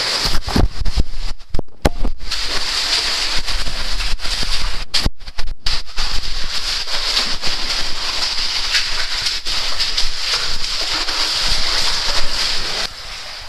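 Loud, steady rush of a cave streamway, with splashing as a caver wades through the water. The rush drops sharply near the end.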